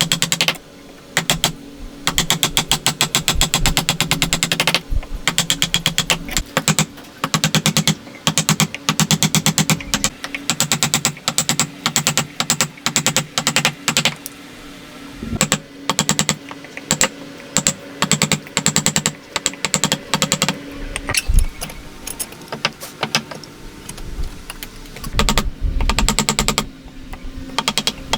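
Rapid runs of sharp taps or clicks on wood, about ten a second, with a low hum under them, stopping and starting every few seconds, from a tool working the wood.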